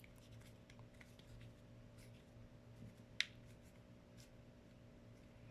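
Near silence over a steady low hum, with faint handling ticks and one sharp click about three seconds in from a plastic tripod stand being handled.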